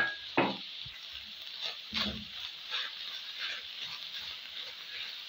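Spring onions sizzling in a frying pan with a steady hiss while a spoon stirs and scrapes them, with a couple of sharp knocks at the start.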